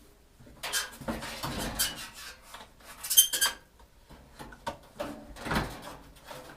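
Metal parts and tools clinking, scraping and knocking as they are handled, with one short ringing metallic clang about three seconds in.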